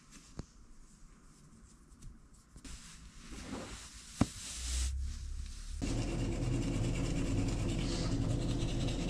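Soft rustling of socks on bedding with a few small clicks and one sharp click about four seconds in, then a steady mechanical hum with hiss from about six seconds that cuts off abruptly at the end.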